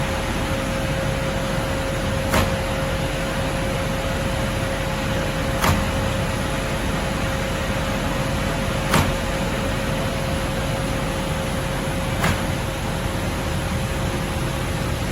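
Automated dog-treat production machinery running: a steady mechanical noise with a constant hum, and a short clack about every three and a half seconds as the machine cycles.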